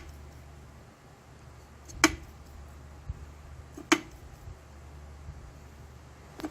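Wooden knocking bird on its spring striking a wooden surface: three sharp, single wooden knocks about two seconds apart, over a low steady hum.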